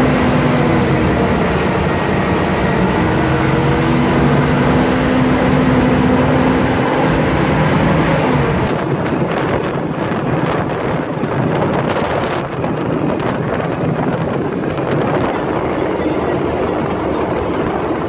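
Open-sided amphibious Duck tour vehicle driving along a road: a steady engine hum with road noise, and wind buffeting the microphone. About halfway through the engine tones fade and the wind noise takes over.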